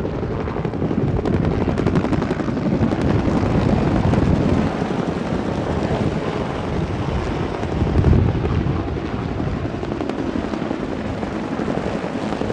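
A formation of military helicopters flying overhead: a dense, steady rotor chop and engine noise, swelling a little midway and briefly louder about eight seconds in.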